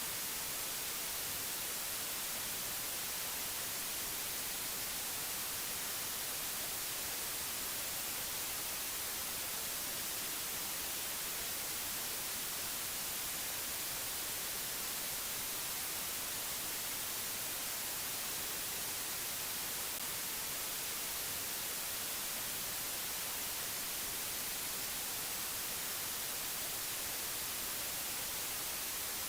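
Steady white-noise hiss, even and unchanging, brightest in the high treble, with no tones or events in it.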